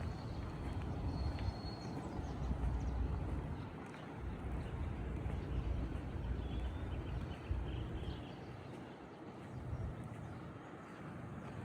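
Outdoor ambience: a steady, fluctuating low rumble with a few faint, high bird chirps.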